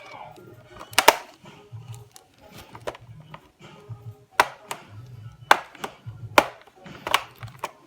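Five sharp plastic clicks and knocks from a laptop being worked on, spaced irregularly, over background music.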